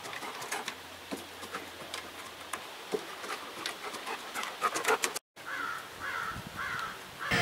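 Dog's claws clicking on wooden deck boards as it walks. After a brief dropout, four short squeaky calls come about half a second apart.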